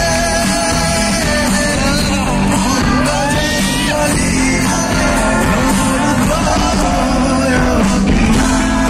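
Live band with electric guitars and singing playing loud from the stage, with yells from the crowd around the phone.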